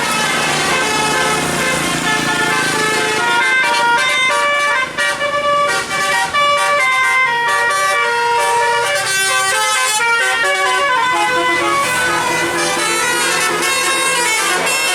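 A bus's musical "telolet" air horn playing a fast tune, its notes stepping up and down in quick succession, with short breaks about five and six seconds in.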